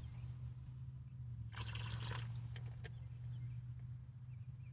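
Water trickling and pouring as a small portable washing machine is filled, with a louder rush of water about a second and a half in and a few small clicks. A steady low hum runs underneath.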